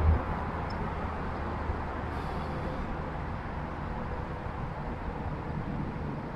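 Steady hum of a Newport electric trolling motor pushing a fishing kayak along, with water rushing along the hull. A short low thump comes right at the start.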